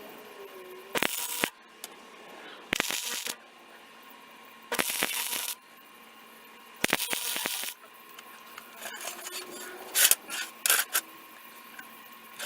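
Electric arc welder laying short tack welds on a steel power hammer die: several bursts of welding noise, each under a second, with a few shorter ones near the end over a faint steady hum.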